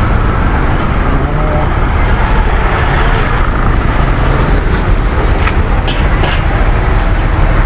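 Steady din of road traffic with a low rumble, and people talking in the background.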